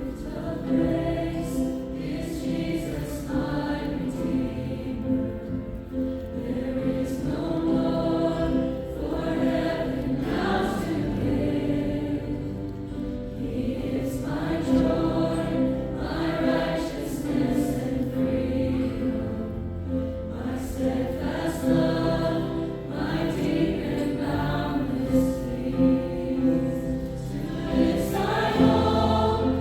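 A choir singing a gospel worship song, with instrumental accompaniment holding a steady bass under the voices.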